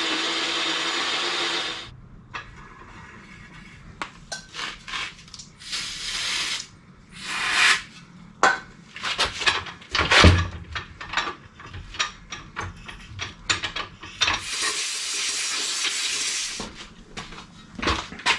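A cordless drill runs steadily into the steel saddle of a trolley floor jack for about two seconds, then stops. After that come clinks, taps and knocks of hand tools on metal, with one heavier knock about ten seconds in and several short hissing bursts, the longest lasting about two seconds near the end.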